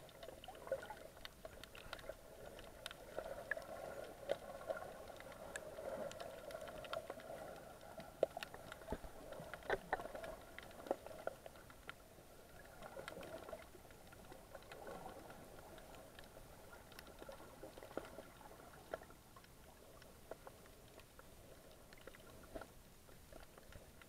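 Underwater ambience recorded by a camera held beneath the sea surface: a faint, muffled, wavering hum, strongest in the first half, with scattered sharp clicks and crackles.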